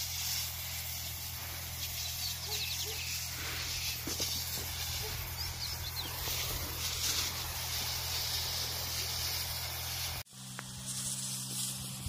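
Pressurised fungicide spray hissing from an orchard hose spray gun, swelling and fading in patches, over the steady low drone of the power sprayer's pump. The sound breaks off abruptly a little before the end and resumes with a different low drone.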